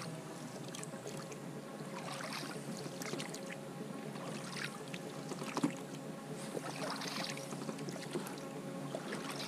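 Small boat moving on calm river water, with a paddle dipping and swishing through the water a few times, over a steady faint hum. There is one sharp knock about halfway through.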